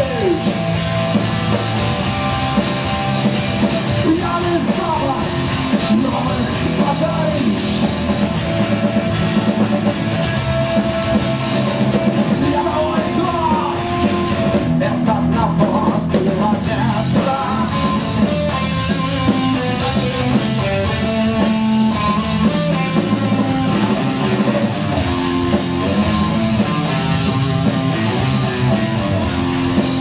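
Live rock band playing an instrumental passage on electric guitar, bass guitar and drums, with the guitar's line sliding in pitch about twelve seconds in.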